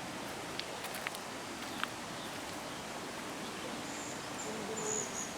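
Outdoor background ambience: a steady hiss, with three faint clicks in the first two seconds and a high, broken chirping from about four seconds in.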